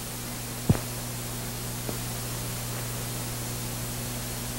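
Hiss and steady low hum of an old film soundtrack between lines of dialogue, with one sharp click about two-thirds of a second in and a fainter tick near two seconds.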